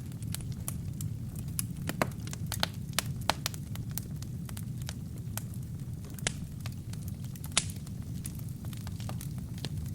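Wood and kindling fire in a fireplace burning, with irregular sharp crackles and pops over a steady low rumble of the flames. The loudest pops come about two seconds in and a little before eight seconds.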